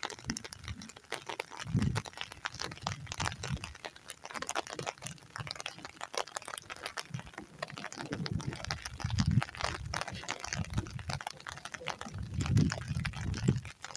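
Footsteps on wet, muddy ground, a scatter of small squelches and clicks, with a few low rumbles on the microphone, the strongest about two seconds in, around eight to nine seconds, and near the end.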